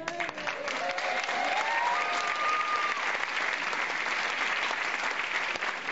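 Theatre audience applauding steadily, a dense patter of clapping. Over the first half, a single voice rises in pitch and holds, a cheer from the crowd.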